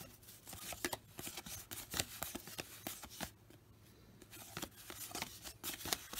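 1986 Topps cardboard baseball cards slid off a stack and flipped one by one: faint papery flicks and rustles, with a quieter pause a little past the middle.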